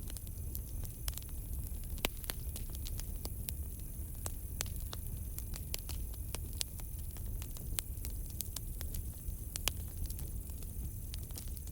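Campfire crackling: irregular sharp pops and snaps from the burning wood, several a second, over a steady low rumble of the fire.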